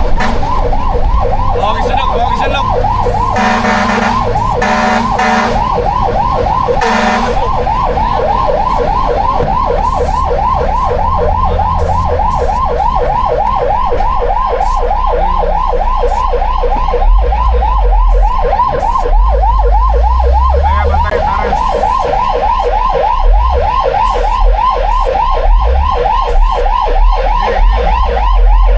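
Fire truck siren sounding in a fast yelp, its pitch sweeping up and down several times a second without a break. A few short noisy blasts come in the first seven seconds, and a low rumble joins about halfway through.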